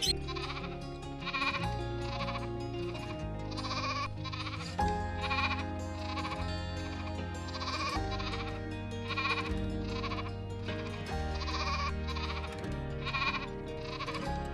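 Repeated bleating, short calls about once a second, over background music with a steady bass line.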